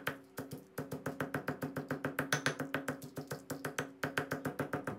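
Granite pestle pounding dry-roasted dried chillies in a granite mortar: a fast, even run of dull knocks, about four or five a second, with a brief pause about half a second in. This is the chillies being crushed fine for a chilli paste.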